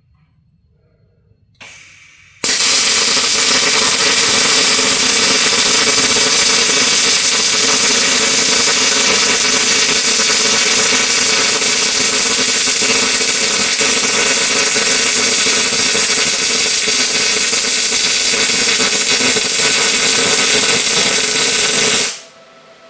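MIG welding arc running a continuous bead: a brief burst, then a loud steady hiss from about two and a half seconds in that cuts off suddenly near the end.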